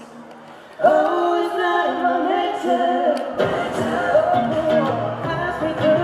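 Live busking music: two male voices singing in harmony. After a brief quiet lull the voices come back in together about a second in, and a low guitar accompaniment fills in under them about halfway through.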